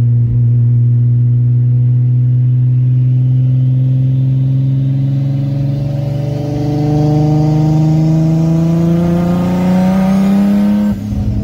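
Big-single-turbo Infiniti G35's V6 engine heard from inside the cabin, pulling steadily under light throttle, its note rising slowly in pitch as the revs climb. A faint high whine from the turbo spooling rises near the end. About eleven seconds in, the engine note breaks off abruptly.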